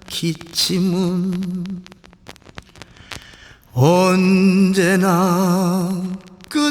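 Korean male singer singing a slow ballad from a vinyl LP: two long held phrases with a wide, heavy vibrato, and a pause of about two seconds between them in which a few scattered clicks are heard.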